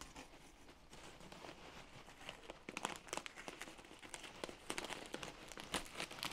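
Faint crinkling and scratching of paper wrapping being cut open with a hand cutter around a heavy metal part, with packing peanuts shifting; the crackles come thicker and louder about halfway through.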